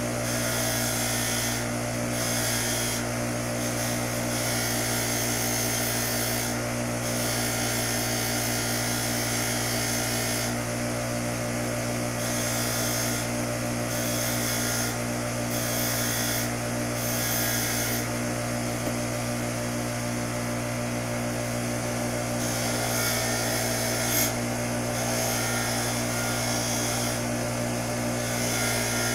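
Bench grinder running with a steel wire wheel, wire-brushing small steel bicycle clamp parts clean. There is a steady motor hum under a scratchy hiss that breaks off briefly every second or two.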